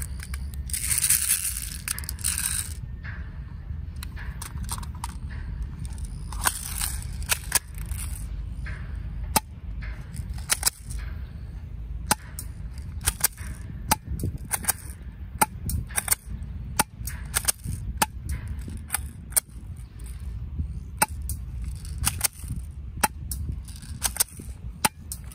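Eagle Star Colt .45 Commander-style airsoft BB pistol being shot again and again: a long irregular string of sharp snapping shots, roughly one every half second to a second. In the first couple of seconds there is a burst of rattling handling noise as the magazine is loaded. A low rumble of wind on the microphone runs underneath.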